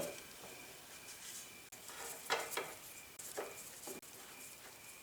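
Light metal clinks and scrapes of hand tools and parts being handled on a planer's cast-iron bearing housing, a few brief bursts about two and a half and three and a half seconds in.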